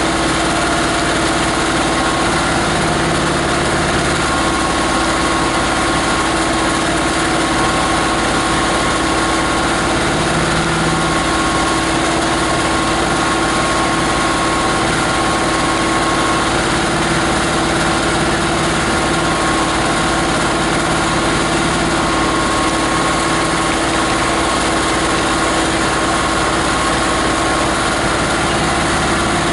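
Grinder's 18 HP diesel engine running steadily, with an even, unchanging tone.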